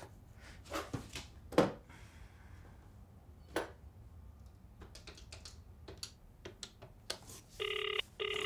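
A few faint scattered clicks and taps, then near the end a telephone ringing tone in short bursts as an outgoing call rings through.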